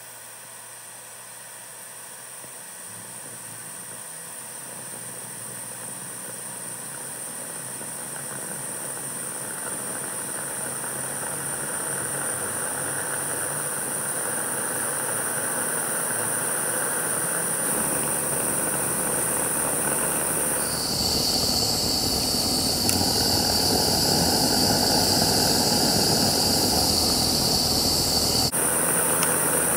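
Aster Gauge 1 live steam model of a DR class 03 locomotive raising steam: a steady hiss grows louder as the boiler pressure climbs. About two-thirds of the way in, a high, steady whistling tone joins with a deeper rush, then cuts off suddenly shortly before the end.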